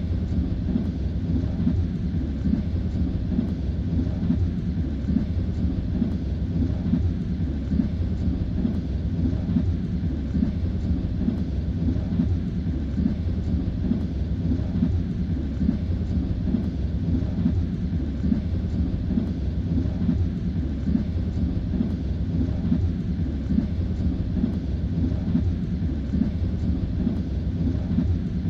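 Train wheels knocking over the rail joints under a steady low rumble, heard from inside a moving railway carriage.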